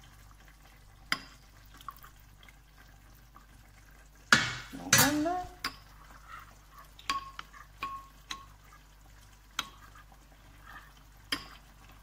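A metal spoon stirring a flour and sour-cream thickening mixture in a ceramic bowl, with light clinks and scrapes against the bowl. About four seconds in, a clunk and a short splash as paprika chicken sauce is poured in from the pot.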